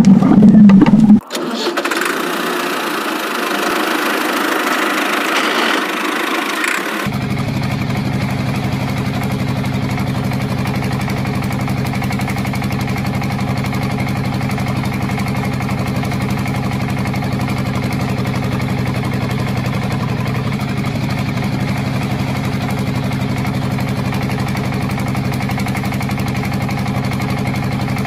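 Engine idling steadily, an even low drone with no change in speed. For the first few seconds a thinner, higher-pitched running sound with no low end is heard instead, giving way to the idle about seven seconds in.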